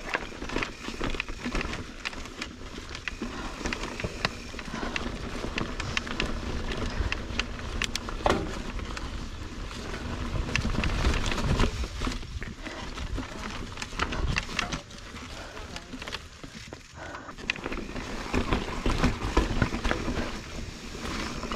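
Mountain bike riding over rocky dirt singletrack: tyre noise over dirt, rocks and leaves, with frequent clicks, knocks and rattles from the bike as it rolls over rough ground.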